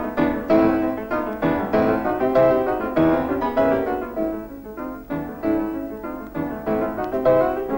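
Background piano music, a brisk succession of notes.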